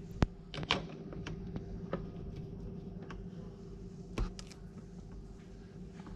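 Metal clicks and knocks as a portafilter is pushed up into the group head of a La Pavoni Europiccola lever espresso machine and twisted to lock it in place. There is a sharp knock about a quarter second in, a few lighter clicks, and another strong knock with two quick clicks about four seconds in, over a faint steady hum.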